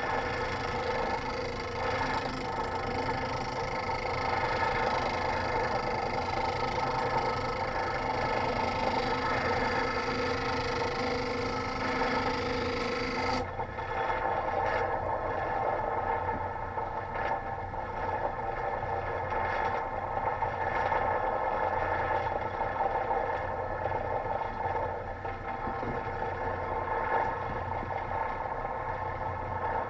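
Bench grinder running steadily, a steel chisel held against its old grinding wheel to grind the nicks out of the edge. About thirteen seconds in, the high hiss drops away suddenly while the motor sound carries on.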